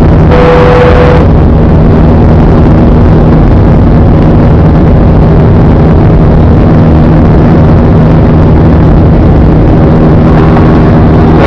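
Airbus A320 jet engines at takeoff power, heard loud and steady from inside the passenger cabin: a constant roar with a low engine hum. About a second in, a short brighter hiss with a steady tone lasts roughly a second.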